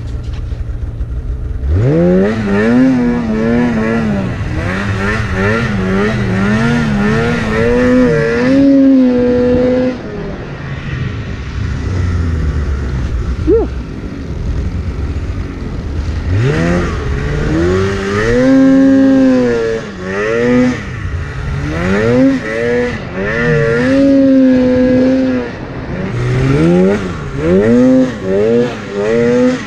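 Stock 2016 Polaris Axys RMK 800 snowmobile's two-stroke twin engine running hard through deep powder, revving up and down over and over as the throttle is worked. It drops to a lower, quieter drone from about 10 to 16 seconds in before revving again.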